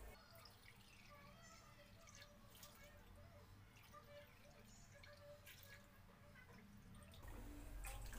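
Faint trickling and splashing of water poured from a bottle and a glass bowl into a pan of cooking vegetables, with a few light clicks.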